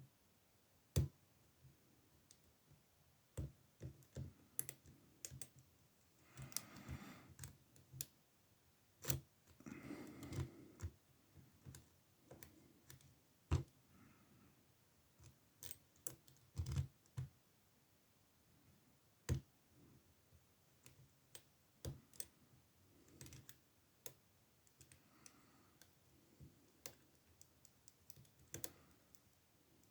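Faint, irregular small metallic clicks and scrapes of lock picks working the pins of an older Ruko oval cylinder in an ASSA padlock, with a couple of brief rubbing scrapes.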